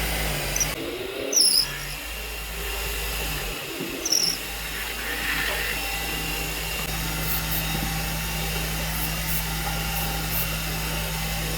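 A power tool running with a steady hum while working wood, broken by two short, loud, high-pitched squeals about a second and about four seconds in.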